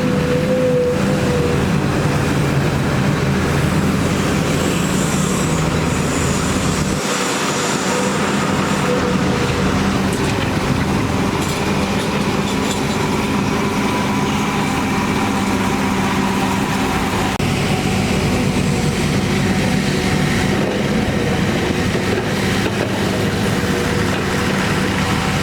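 Diesel engines of heavy earthmoving machinery running steadily, with a short squeal every several seconds.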